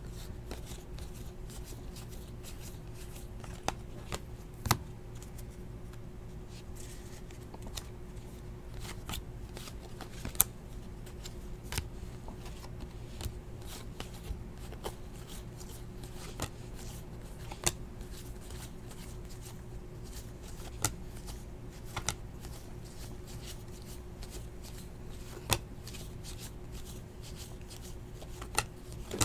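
A stack of 2017-18 Panini Hoops basketball trading cards being thumbed through by hand, one card at a time, with sharp snaps of card edges at irregular intervals. A steady low hum sits underneath.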